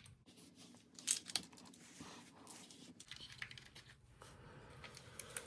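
Plastic parts of a dishwasher control panel being handled, with scattered small clicks and rustling and one sharper click about a second in.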